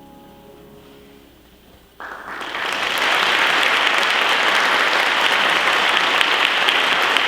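Audience applauding: the last notes of piano-accompanied music fade out, and about two seconds in clapping breaks out suddenly and swells into steady, full applause.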